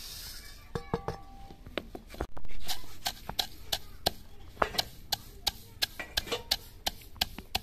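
Dried coriander seeds tipped from a steel plate into a wooden mortar, with a brief loud rush about two and a half seconds in, then pounded with a long wooden pestle: a steady run of dull knocks, about three a second.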